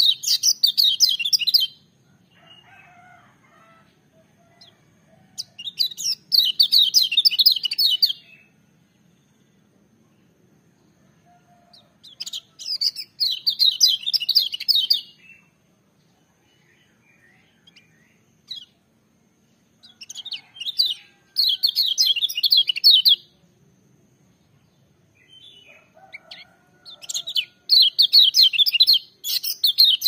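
Caged kecial kuning (yellow white-eye) singing loud, fast, high twittering phrases of about two to three seconds each, five phrases with pauses of a few seconds between them.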